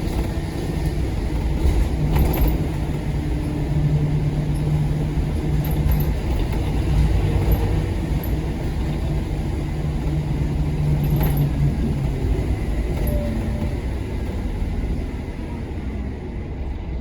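Scania K230UB Omnilink single-deck bus's five-cylinder diesel engine running with a steady low drone under way. The drone falls away about twelve seconds in and the sound grows quieter near the end, with a few light rattles along the way.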